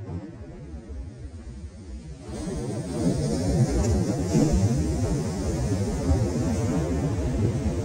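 Shore-break wave breaking and crashing on the beach. A low rumble is heard at first, and the rush of the breaking wave comes in loudly about two seconds in and keeps on.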